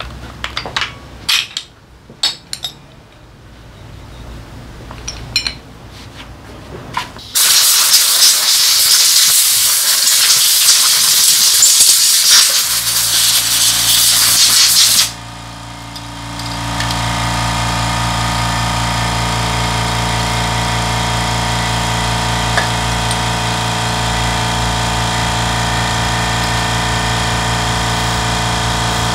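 Light clicks of metal brake parts being handled, then an aerosol spray can hissing hard for about seven seconds on the brake panel, which cuts off suddenly. After that a steady machine hum with an engine-like tone runs on.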